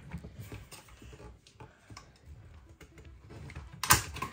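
Plastic filter wrench tightening a reverse osmosis filter housing: small scattered plastic clicks and creaks as the housing is turned tight, then one sharp, louder click near the end.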